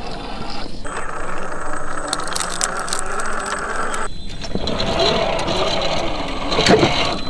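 1/10-scale RC rock crawler with a Land Cruiser FJ45 body driving over rock: its electric motor and drivetrain whine, rising and falling in pitch with the throttle, over clicking and rattling from the tyres and drivetrain on the rock, with a knock near the end. The sound cuts off abruptly twice.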